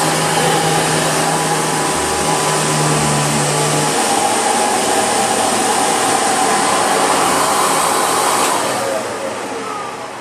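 Hoover Breathe Easy upright vacuum cleaner running steadily at full power, then switched off near the end, its motor winding down with a falling whine.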